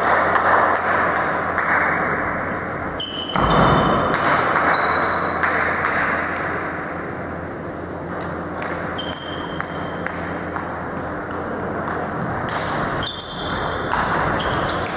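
Table tennis balls clicking irregularly off tables and bats, each with a short bright ping, over steady hall noise. Near the end the clicks come from a rally on the near table.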